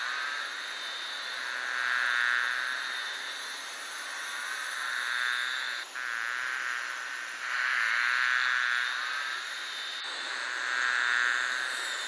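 Dense buzzing of many honeybees massed on a fallen honeycomb, swelling and fading every few seconds over a steady hiss.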